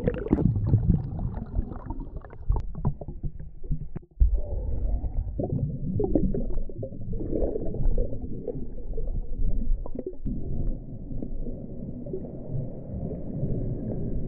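Muffled underwater rushing and bubbling of pool water, heard through a submerged action camera as swimmers move about, with scattered crackles and a sharp thump about four seconds in.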